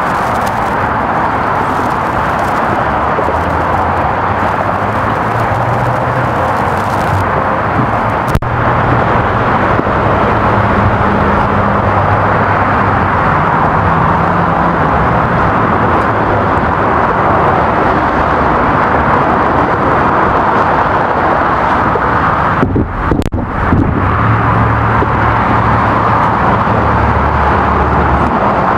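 Steady roar of freeway traffic, with the hum of engines from passing vehicles rising and falling underneath and a single sharp click about eight seconds in.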